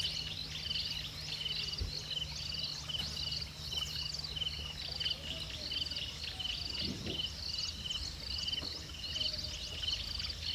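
Chorus of calling insects or frogs: short, high, pulsed trills repeated over and over at two pitches, over a low steady hum that drops away about halfway through.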